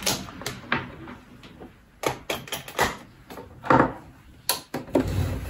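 Irregular clicks and knocks of a power cord and plug being handled and plugged in, about a dozen sharp taps spread unevenly over several seconds.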